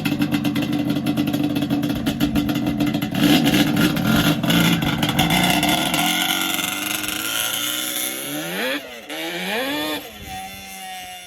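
Quad (ATV) engine running and revving, then pulling away and fading out, with a few rising and falling sweeps in pitch as the throttle is worked near the end.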